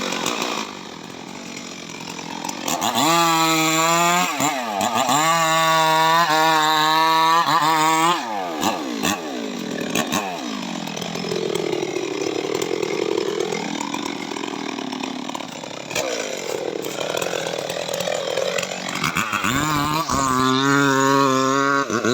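Stihl MS 382 two-stroke chainsaw running at full throttle. About a third of the way in, the engine speed drops and wavers for several seconds as if under load cutting into teak wood. Near the end it climbs back to high revs.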